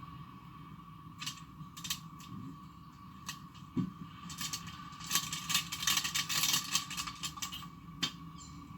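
Plastic wrapping being torn and peeled off an iPhone box close to the microphone: a few scattered crackles and clicks, then about three seconds of dense crinkling in the second half, and one last click near the end.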